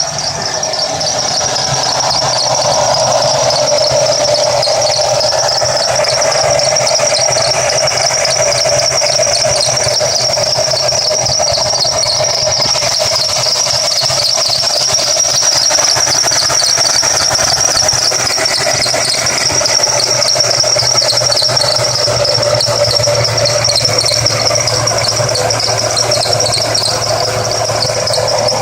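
A car engine's accessory drive belt squealing continuously over the engine running. The squeal is a high, fluttering tone with a lower squealing band beneath it, and it stays steady throughout.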